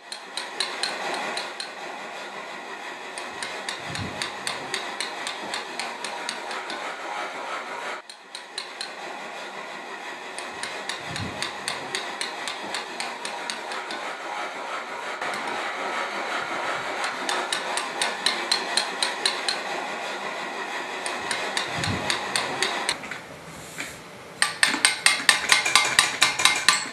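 Steel chisel struck by a mallet in a quick, steady rhythm, about three to four sharp taps a second, hand-cutting letters into a stone gravestone. The strikes become louder and crisper about three seconds before the end.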